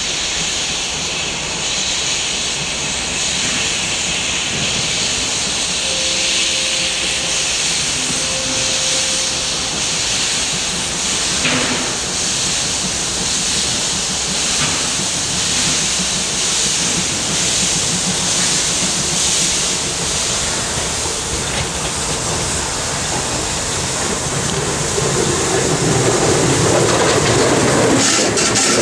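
DB class 012 steam locomotive venting steam with a steady hiss as it backs slowly along the track, with a single knock about eleven seconds in. Near the end it draws close and the sound grows louder and fuller.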